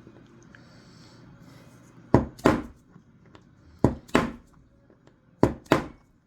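Six sharp taps in three pairs, driving a pin into the trigger group housing of a Marlin Model 60 rifle.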